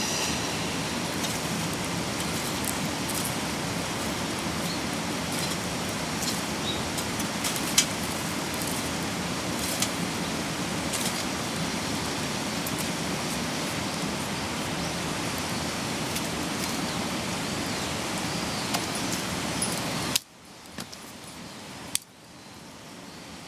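Steady rushing of a mountain stream, with scattered sharp clicks over it. About twenty seconds in the sound drops abruptly to a much quieter hiss.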